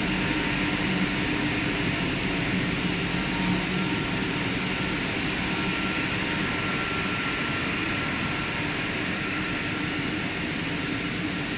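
Steady machinery noise of a running large-diameter HDPE pipe extrusion line: a continuous hiss and hum with a few faint steady tones and no distinct events.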